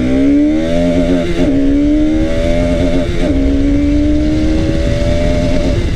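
Motorcycle engine pulling hard as the bike accelerates. Its pitch climbs steadily, drops briefly at a gear change about a second and a half in and again about three seconds in, then rises slowly again. Low wind rumble on the microphone underneath.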